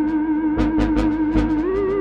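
Electronic techno music: a held, wavering synth tone over a beat of low thumps and short high ticks. The synth tone steps up in pitch about one and a half seconds in.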